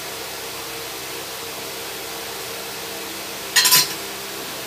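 Stainless-steel tableware clinking: a short clatter of a few quick metallic knocks about three and a half seconds in, over a steady background hum.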